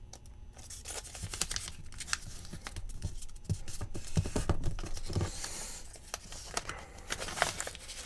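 A paper dollar bill being folded by hand: crisp crinkles and snaps of the banknote as creases are made, with a longer rustle around the middle as the folded bill is pressed flat.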